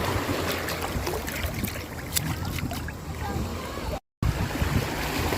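Sea water sloshing and lapping around a boat, with small splashes and clicks over a low steady hum. The sound cuts out completely for a moment about four seconds in.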